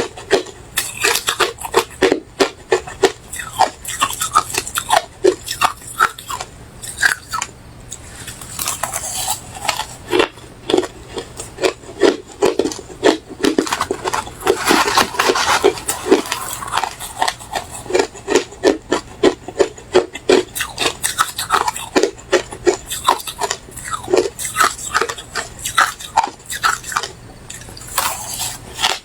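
Refrozen crushed ice being chewed close to the microphone: a rapid, uneven run of sharp crunches, several a second.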